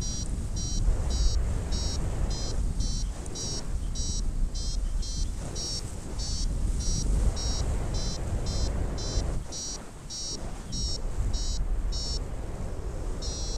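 Paragliding variometer beeping steadily, about three short high beeps a second, the climb tone that signals the glider is rising in lift; the beeps stop briefly near the end, then resume. Wind rushes on the microphone underneath.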